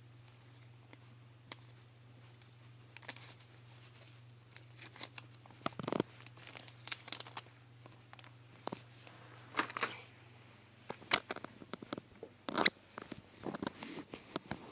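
Plastic flavour packet of instant noodles crinkling and rustling in irregular bursts as it is emptied, with scattered light clicks and taps. A faint low hum fades out about eleven seconds in.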